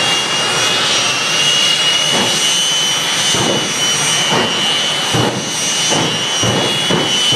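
Jet car turbine engine running loud, with a steady high whine over a rushing roar and an uneven low pulsing that sets in about two seconds in.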